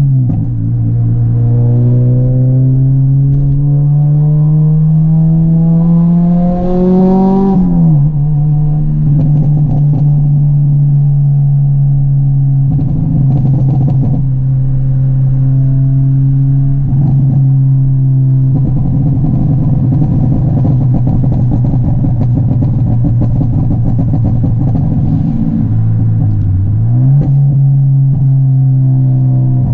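Honda Civic EP3 Type R's 2.0-litre four-cylinder VTEC engine under hard acceleration, revs rising steadily for about seven seconds before a sharp drop at a gear change. The engine then holds steady high revs, with a brief dip and climb back a few seconds before the end.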